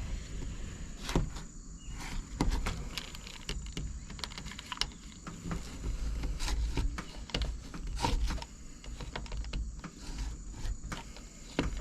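Irregular light clicks and taps from hands working a window screen's frame and rubber spline, pressing the spline into the frame's channel.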